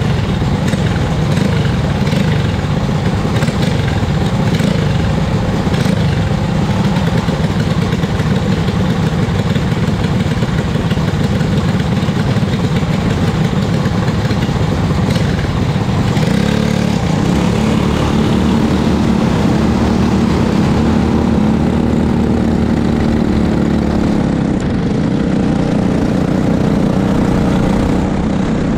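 Briggs & Stratton LO206 single-cylinder four-stroke kart engine idling close by, a steady running note whose pitch wavers partway through.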